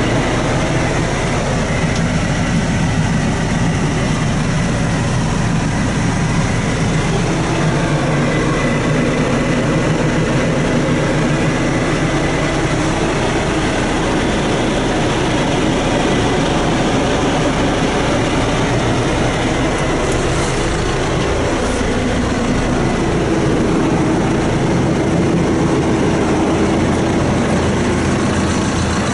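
John Deere diesel engine of a 2010 John Deere 6430 tractor running steadily, heard from inside the cab.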